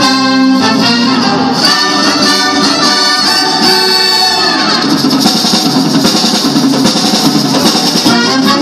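Symphonic wind band of saxophones, clarinets, flutes and trumpets playing a piece under a conductor, with held chords that give way to a busier, brighter passage about halfway through.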